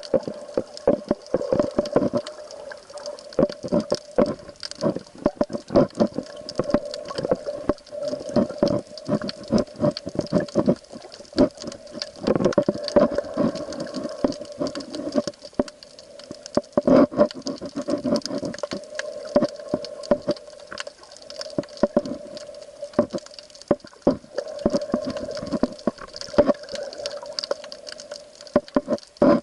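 Water sloshing and crackling, heard as dense, irregular clicks and patter over a steady hum.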